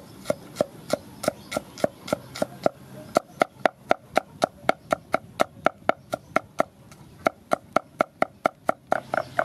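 Knife chopping garlic cloves on a round wooden chopping block: a steady run of sharp knocks, about three a second.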